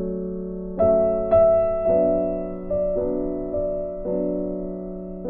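Background piano music: soft chords struck every half second to a second, each ringing and fading before the next.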